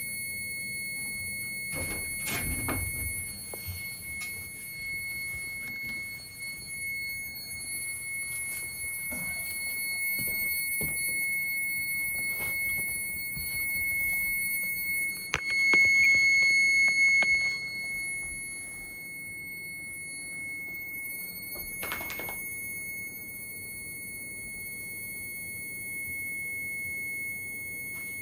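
Carbon monoxide alarm of a Testo combustion analyzer sounding one steady high-pitched tone, warning of dangerous carbon monoxide from a gas furnace. The tone is louder for a couple of seconds about halfway through, with a few handling knocks along the way.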